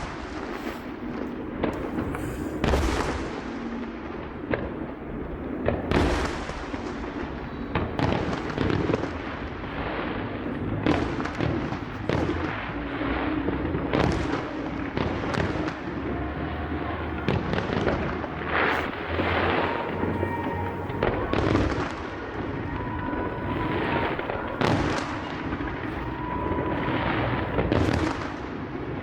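Aerial fireworks bursting in a dense, continuous barrage, with sharp bangs following one another about every second.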